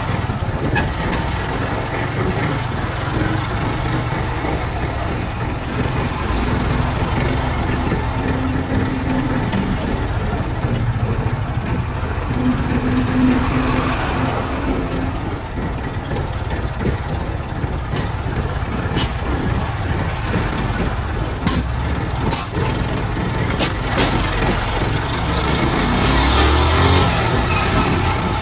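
Road traffic in a slow jam: the engines of trucks and buses running and idling, a steady wash of noise. A low drone is held twice for a few seconds, and there are a few sharp clicks past the middle.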